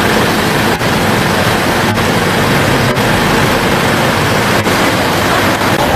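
Steady, loud rushing noise, even from low to high pitch and without change.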